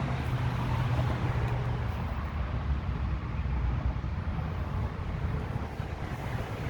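A truck's big-block V8 idling with a steady low rumble. A steady hum over it stops about two seconds in.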